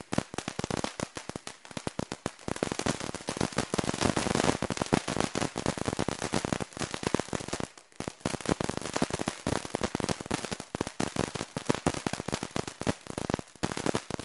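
Ground fountain firework spraying sparks and crackling: a dense, rapid run of small pops. The pops thin out briefly about halfway through and stop near the end as the fountain burns out.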